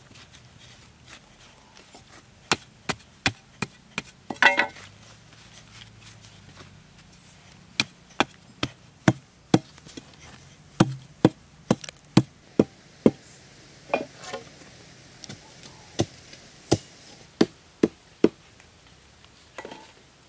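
Sharp wooden knocks, about two a second in short runs with pauses, as thin wooden poles are knocked and tamped into holes in packed earth. There is a brief rougher scrape about four seconds in.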